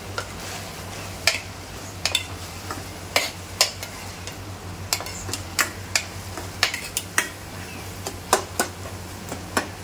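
Steel spoon scraping and clinking against a steel pot as minced chicken and sliced onions are stirred, about a dozen irregular clinks. Under it is a low steady sizzle of the keema cooking in the water it has released.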